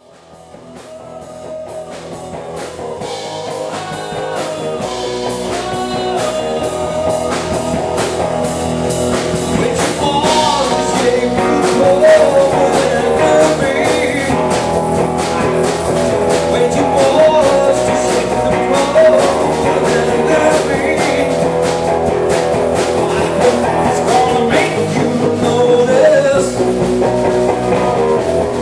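Live rock band playing with electric guitars, bass guitar and a drum kit keeping a steady beat. The music fades in over the first several seconds.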